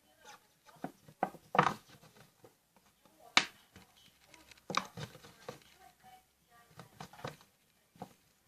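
Irregular clicks and scrapes of a thin plastic sour cream tub being cut and handled, the loudest about one and a half and three and a half seconds in.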